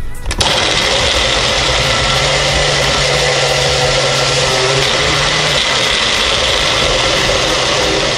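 Magic Bullet personal blender motor switching on about half a second in and running steadily as it blends a smoothie.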